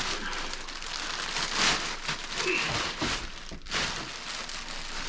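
Plastic wrapping being pulled off a new chainsaw and crumpled: continuous crinkling and rustling, with a louder rustle about a second and a half in.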